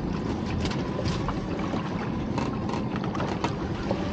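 A crab pot being hauled up the side of an inflatable boat: a scatter of sharp clicks and knocks at irregular times, over steady wind and water noise.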